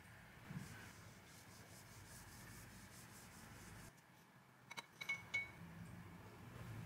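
Serrated bread knife sawing through a soft chiffon cake in faint rasping strokes. About five seconds in come a few light clinks with a short ringing tone.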